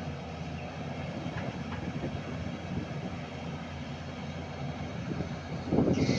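Hyundai 210-7 hydraulic excavator's diesel engine running steadily. Near the end a louder, rougher burst of noise comes in.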